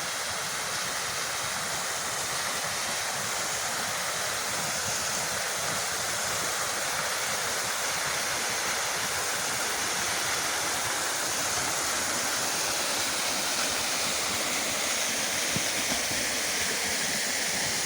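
Chereres Waterfall's water falling and rushing: a steady, even roar.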